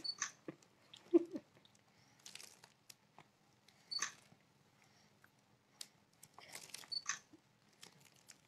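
Faint scattered clicks and crinkles: a one-year-old's lips smacking as he sucks cake frosting off his fingers, and the clear plastic sheeting under him rustling as he shifts.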